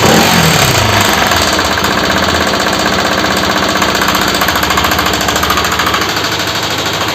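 Bajaj Pulsar RS200's single-cylinder four-stroke engine dropping from a rev to idle about a second in, then idling with a fast, loud mechanical clatter from the top end. The noise comes from a damaged inlet rocker arm that has lost its roller bearing.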